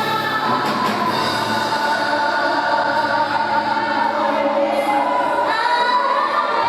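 Worship choir singing a gospel hymn with sustained, gliding vocal lines over instrumental accompaniment.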